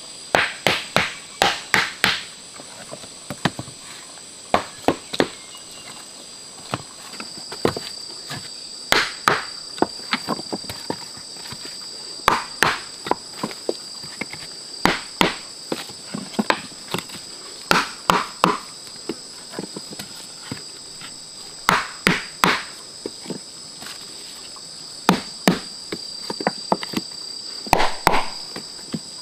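Thick sawn wooden log rounds knocking against each other and the ground in quick clusters as they are set down and pressed into place as paving. Under it, a steady high insect drone, with a second, lower insect tone joining about a quarter of the way in.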